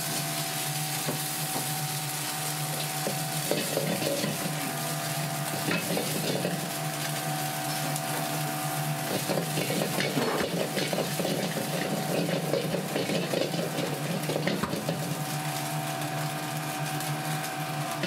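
Food sizzling in hot oil in a carbon-steel wok over a steady background hum, with a metal ladle now and then scraping and clinking against the pan.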